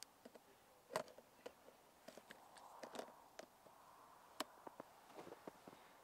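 Faint, scattered clicks and light knocks of gloved hands handling a camera with a long telephoto lens on a tripod, the sharpest click about a second in.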